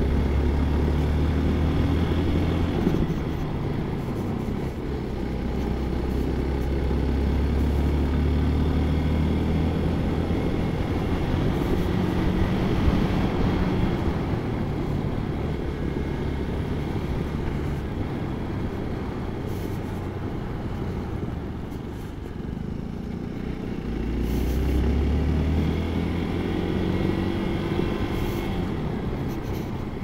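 Hero XPulse 200 4V single-cylinder motorcycle engine running under way, its pitch climbing several times as it accelerates and easing off in between.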